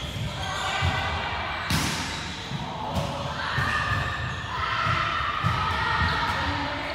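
A ball bouncing again and again on a wooden sports-hall floor, dull thuds every fraction of a second, with one sharp smack of a ball being struck about two seconds in; voices call out across the hall.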